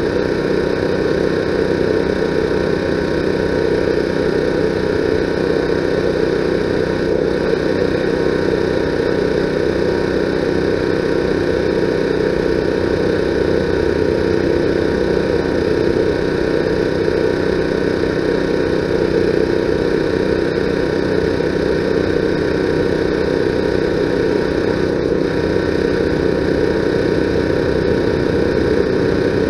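A steady mechanical drone, like an engine running at idle, holding an even level with a constant hum throughout.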